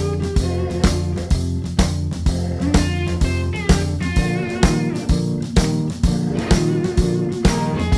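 Background music: a blues-rock band with electric guitar, bass guitar and a drum kit keeping a steady beat.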